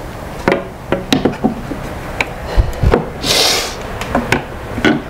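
Irregular knocks and clicks of metal and plastic parts being handled on a supercharger lid as a connector is moved aside, with a short hiss about three and a half seconds in.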